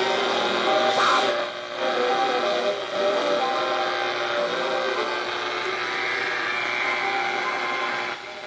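Armstrong regenerative radio receiver running on a transistorised X99 tube substitute, giving out noisy reception: loud static and hiss with faint steady tones and faint station audio underneath. The level drops near the end.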